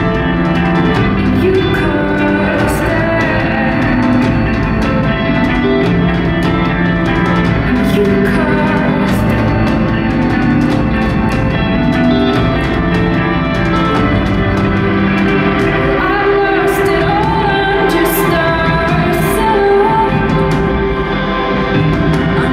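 Background music: a slow pop song in a stretch without lyrics, with held chords changing every couple of seconds. A wavering wordless vocal line comes in about two-thirds of the way through.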